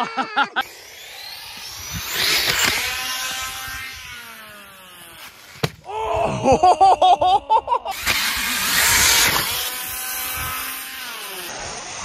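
Traxxas Sledge 6S electric RC truck's brushless motor whining, its pitch rising and falling with the throttle, over wind noise, in several short cut-together runs. About six to eight seconds in the whine comes in a quick series of loud pulses.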